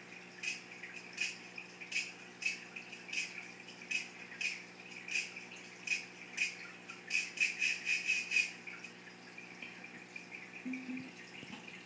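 A series of short, sharp clicks or taps, about one every two-thirds of a second, then a quicker run of them about seven seconds in that stops about a second and a half later, over a faint steady hum.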